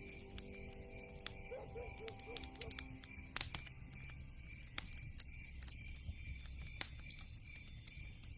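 Wood fire burning in a fireplace: a steady low rumble with irregular crackles and sharp pops from the burning logs, the loudest pops about three and a half and five seconds in. A brief faint warbling tone sounds about two seconds in.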